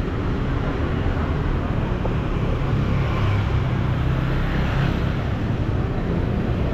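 Street traffic: motor scooters and cars passing close by, a steady engine hum that swells about halfway through as a scooter goes past.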